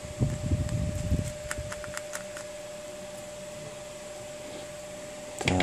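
Precision screwdriver and tiny parts being handled on an iPhone 6 Plus display module: low rustling at first, then several small sharp metallic ticks around two seconds in, and a louder handling knock near the end, over a steady electrical hum.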